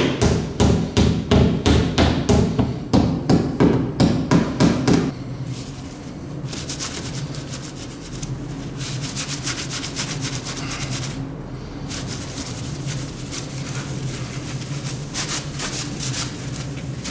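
Ball-peen hammer striking a sheet-metal wheel-arch panel on a bus, about three sharp blows a second, stopping about five seconds in. After that a cloth rubs across the metal panel in repeated wiping strokes, over a steady low hum.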